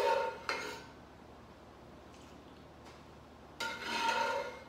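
Metal ladle scraping and clinking against the bottom of a shallow skillet while scooping frying oil, twice: once at the start and again near the end, with a faint metallic ring.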